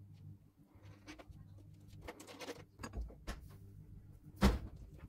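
Quiet handling noise of wires and small parts being twisted together and insulated, scattered rustles and light clicks over a faint steady hum, with one sharp knock about four and a half seconds in.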